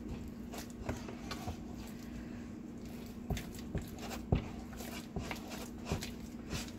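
Wooden spoon beating and stirring a thick genfo porridge of besso and bula in a saucepan: irregular soft knocks and squelches as the spoon works the heavy dough against the pan. A steady low hum runs underneath.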